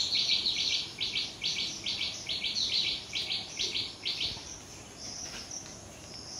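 Insects chirping: groups of short, buzzy, high-pitched chirps in quick succession, which stop a little after four seconds in, over a steady high insect drone.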